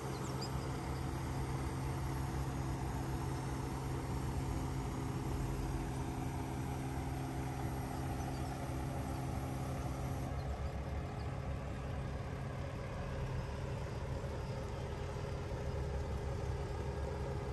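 Diesel engine of a Scania crane truck running steadily, driving the hydraulics of its Fassi knuckle-boom crane while the crane lowers a boat. The tone changes slightly about ten seconds in.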